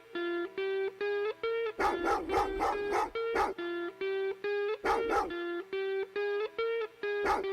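Hip-hop beat with a repeating plucked-string melody and short dog-bark sounds cut into it: a quick run of barks about two seconds in, then single barks around five seconds and near the end.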